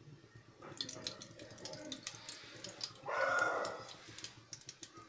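Cooking oil poured in a thin stream into an empty aluminium pressure cooker, trickling and dripping, with a louder rustling stretch about three seconds in.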